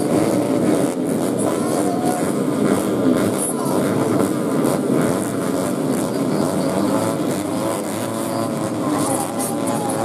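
Several four-stroke 130 cc underbone racing motorcycles running together on a starting grid, their engine revs rising and falling as riders blip the throttles, with a voice mixed in.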